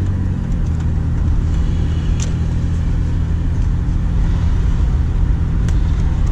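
Truck engine and road noise heard from inside the cab while driving at a steady speed: an even, low engine hum.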